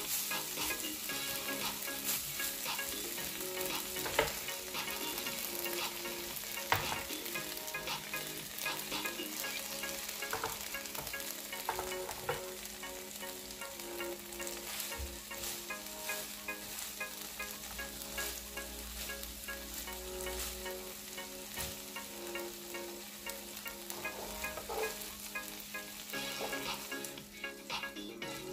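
A sheet of seasoned dried whitebait (baengeo-po) sizzling and crackling in hot oil in a nonstick frying pan, with metal tongs pressing and turning it and clicking sharply against the pan a couple of times.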